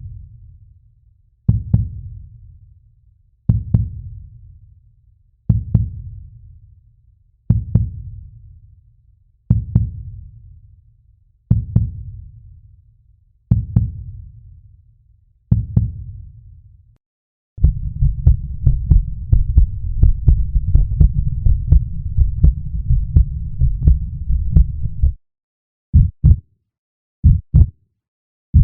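Heartbeat sound effect: deep single thumps about every two seconds, each with a long fading tail. After about seventeen seconds it changes to a fast, dense run of beats lasting some seven seconds, then to short separate beats a little over a second apart.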